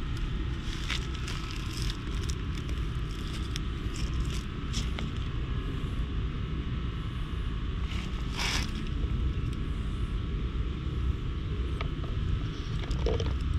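Steady low rumble of wind on the microphone, with light rustling and scattered clicks from the petting and the cat moving against leaves. There is a louder rustle about eight seconds in.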